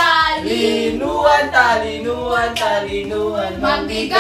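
A boy and girls singing together without accompaniment, in held notes that slide up and down.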